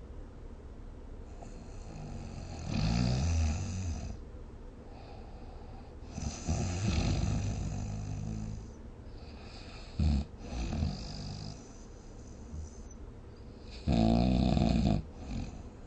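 A person snoring in four bouts a few seconds apart, each lasting one to two seconds. Two of them, just past the middle, are short snores close together.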